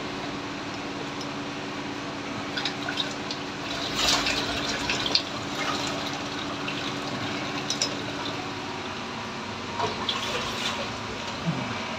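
Water running and dripping from a drain pipe into a mesh strainer basket in a drain pit, over a steady low hum. Short splashes and knocks come in clusters about four seconds in and again near ten seconds.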